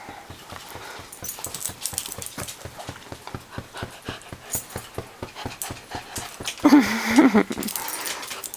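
A small curly-coated dog panting fast and excitedly, several quick breaths a second, while being petted. About seven seconds in comes a short wavering whine-like cry, the loudest moment.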